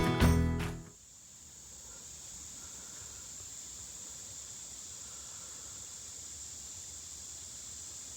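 Background music ending about a second in, then a faint, steady high-pitched insect trill, likely crickets, over light outdoor hiss.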